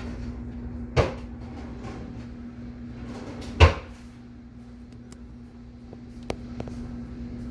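A steady low machine hum, with two sharp knocks about two and a half seconds apart, the second the louder, and a few faint clicks near the end.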